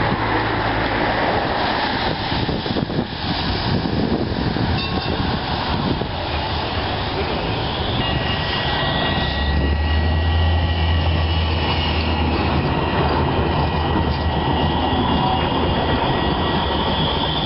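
Alstom Citadis low-floor electric tram approaching and passing close by, with steady rolling and rail noise. About eight seconds in, a thin steady whine from its electric drive appears, joined soon after by a strong low hum as the tram comes alongside.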